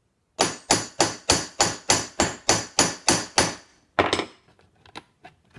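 Ball-peen hammer striking a copper rivet backed by a steel anvil, about eleven quick, even blows at roughly three a second, then a pause and a harder double blow, with a few light taps after. The rivet head is being peened over just enough to capture the steel plate on the leather bracer.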